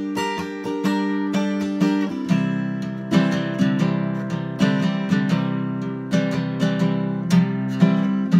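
Acoustic guitar playing alone, picking out chords in a steady rhythm, with a shift to a chord on a lower bass note about two seconds in.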